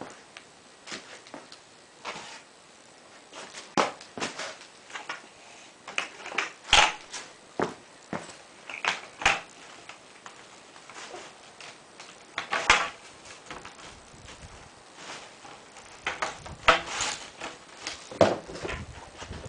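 Parts of a solar panel mounting frame being handled and fitted together: irregular clicks, knocks and rattles, a few sharper clacks among them.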